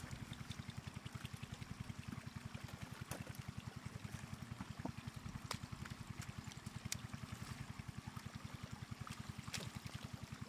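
Water trickling and running, under a steady low throb that pulses about eight times a second, with a few sharp clicks.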